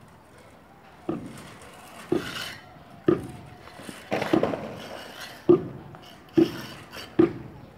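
A steel plastering trowel knocking and scraping against wet cement and metal, with sharp knocks about once a second and a rasping scrape between them, as cement mouldings are worked by hand.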